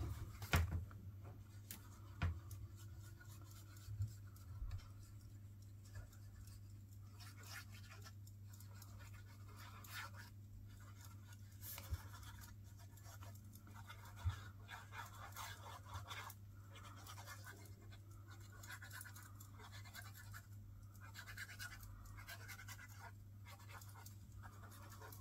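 Faint rustling and scratching of paper pieces being handled and pressed down, with a few soft taps, over a steady low hum.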